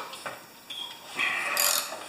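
Metal wrench working a valve plug on a pressure washer's pump, metal on metal: a sharp click at the start, then a rasping stroke in the second half.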